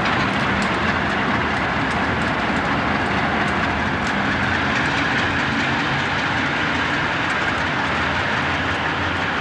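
Conrail diesel-electric locomotives rolling slowly past, diesel engines running steadily with steel wheels on the rails.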